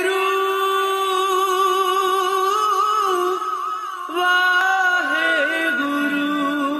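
Background music: a single voice singing a long, held note, then a new ornamented phrase starting about four seconds in that settles onto a lower note.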